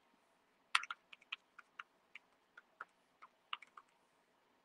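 Faint, irregular clicks of keys being typed on a keyboard, about a dozen keystrokes spread unevenly, the sharpest about a second in.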